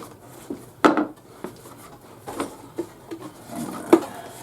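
Numbered bags of Lego pieces being unpacked and handled, with the small plastic bricks rattling and clacking inside them. There are a few sharp knocks, the loudest about a second in and again near the end.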